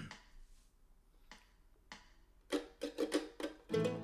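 A-style mandolin picked: a few single plucked notes, then from about two and a half seconds in a quick run of picked notes. A fuller accompaniment with lower notes joins near the end.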